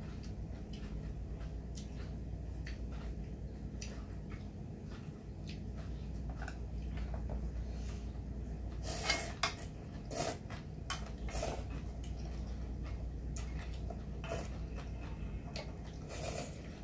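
Chopsticks and spoons clicking against stainless steel bowls and a metal pot while ramen noodles are eaten, with a few short slurps of noodles, the clearest about nine seconds in and near the end, over a steady low hum.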